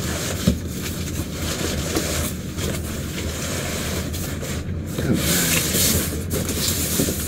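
Cardboard scraping and rubbing as a long inner box is slid up out of a cardboard shipping box, with a couple of sharp knocks of cardboard against cardboard.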